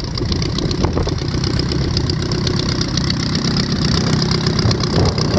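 Volkswagen Type 1 air-cooled flat-four engine of a Teenie Two homebuilt aircraft running steadily at idle and turning its propeller, on its first run after new valve adjustment screws were fitted.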